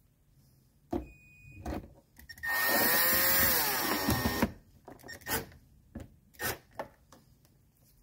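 Milwaukee cordless drill-driver whirring for about two seconds as it drives a small screw home, its pitch shifting as it runs. Light clicks and taps of the driver and parts come before and after.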